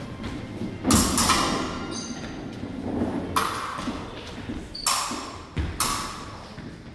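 Fencers' footwork on a wooden gym floor: about five sharp stamps and thuds from advances and lunges, with épée blades clinking.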